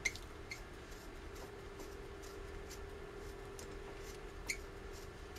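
A hand pin vise and small drill bit being turned by hand in the end of a powder-filled spolette tube, trimming the pressed core hole to depth: faint scraping with a few small sharp clicks, over a steady low hum.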